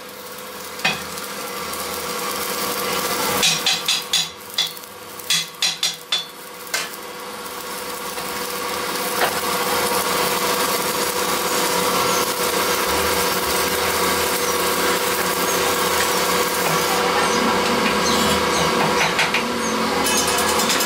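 Metal lathe's electric motor humming steadily, with a quick run of sharp metallic clinks about four seconds in as the steel truck rim is fitted to the chuck. Then the lathe runs, spinning the rim, with a steady noisy sound that swells and holds.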